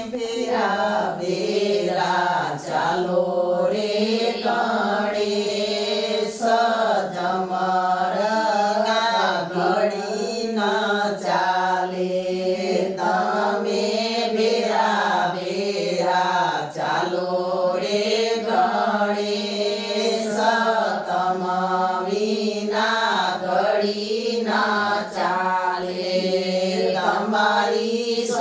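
A group of women singing a Gujarati folk wedding song together, unaccompanied. It is a jaan song, sung for the groom's wedding procession, with a chant-like melody that moves in short repeated phrases.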